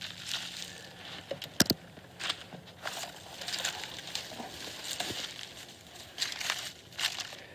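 A hand digger cutting and scraping into soil, then a metal detector coil brushing over dry leaves and twigs: irregular crunching and crackling, with one sharp knock about a second and a half in.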